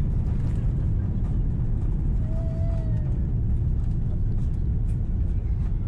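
Steady low rumble inside the cabin of an Airbus A330-300 rolling down the runway after touchdown, engine and runway noise heard through the fuselage.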